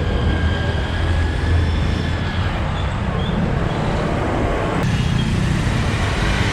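Honda Unicorn motorcycle's single-cylinder engine running under way amid busy street traffic, with a steady low drone. The sound changes abruptly about five seconds in.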